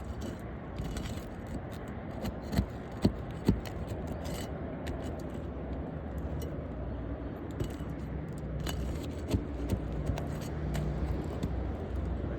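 Tools scraping and clicking against asphalt roof shingles as a damaged shingle is pried loose, with three sharp knocks close together about three seconds in, over a steady low rumble.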